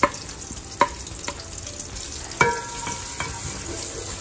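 Sliced onions sizzling in hot oil in an aluminium cooking pot, freshly added and being stirred with a wooden spatula. A few sharp knocks of the spatula come near the start, and a short ringing clank sounds about two and a half seconds in.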